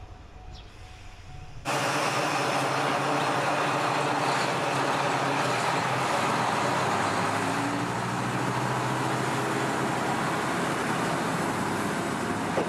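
Diesel railcar's engine running loudly with a steady low drone as the car pulls away along the track. The sound starts abruptly a little under two seconds in, after a quiet stretch.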